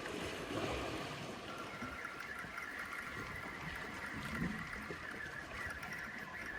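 Sea water washing around the rocks, joined about a second and a half in by a steady high whir of a fishing reel being wound in with a fish on the line.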